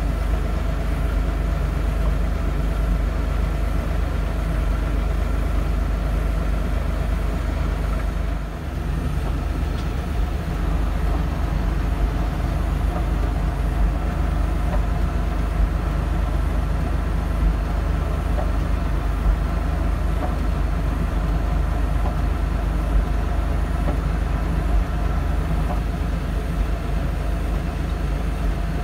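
LS tractor's diesel engine running under load with its front-mounted Couture snowblower blowing snow, heard from inside the cab as a steady low drone with a thin whine on top; it dips briefly about a third of the way in.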